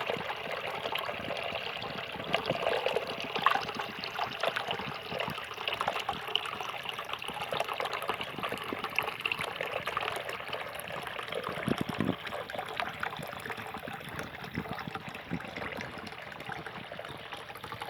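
Water of a cascading waterfall fountain splashing and trickling down its tiers, a steady watery patter with small irregular splashes.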